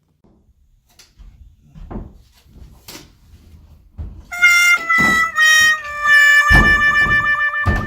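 Scattered knocks and thunks from hanging an interior door, then background music with a stepping melody comes in about four seconds in, with a couple of heavy thuds under it near the end.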